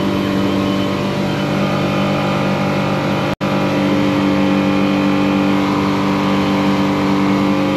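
Suzuki 150 four-stroke outboard running steadily at high revs near full throttle, the boat at speed. It sounds wrapped out while throttle is still left, which the driver takes to mean the boat is under-propped and needs a higher-pitch prop. The sound cuts out for an instant about a third of the way in.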